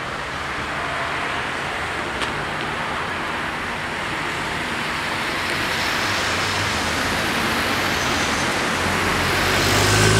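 Road traffic: cars driving past close by, a steady hiss of tyres and engines that grows louder. Near the end a car engine runs close by and louder still.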